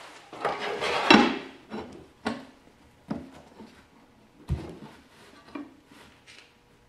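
Clatter of a cover panel being fitted onto the housing of a Mid:Com 8000 control unit, followed by four or five separate sharp knocks as the unit is handled, turned over and set upright on the bench.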